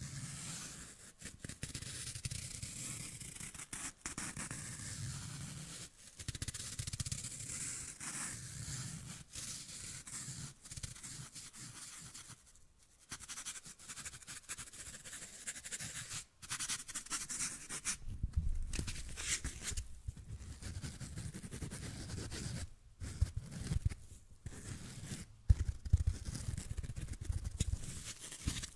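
Fingertip scratching and rubbing a foam sponge close to the microphone, a continuous scratchy rustle. From about two-thirds of the way in, deeper rumbling and a few sharper knocks join as the sponge is brushed against the microphone itself.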